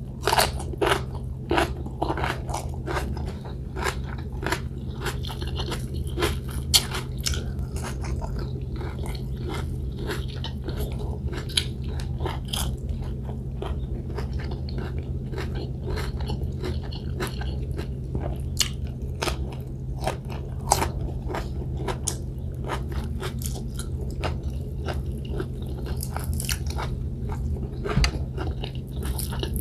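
Close-miked eating: a steady run of crisp crunching bites and chewing of fried milkfish and fresh greens, over a low steady hum.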